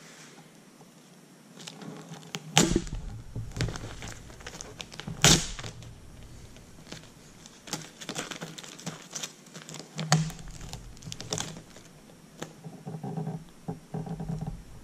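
Clear plastic mask sheet crinkling and blue painter's tape being peeled up and pressed back down by hand, in irregular crackles and taps, with two louder snaps about two and a half and five seconds in.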